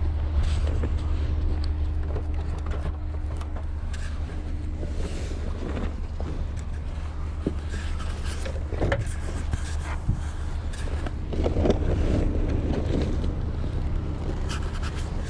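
A car being driven: a steady low engine and road rumble, with a few light knocks and clicks.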